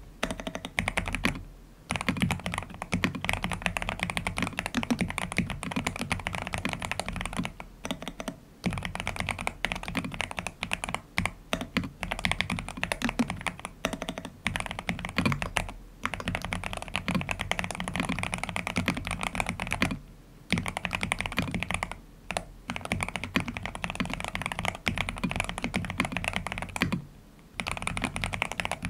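Steady, fast typing on a Cyberboard Terminal mechanical keyboard fitted with Aqua King linear switches and a three-layer tape mod. The keystrokes break off briefly about five times.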